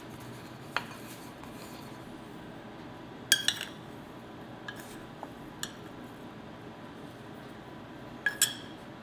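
A metal spoon clinking against a ceramic bowl a few times while scooping out a sugar filling. The loudest clinks come about three seconds in and again near the end.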